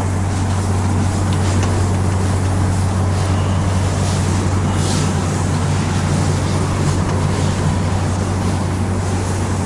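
Steady low electrical hum with an even hiss of background noise, unchanging throughout, under the soft rubbing of a cloth duster wiping a chalkboard.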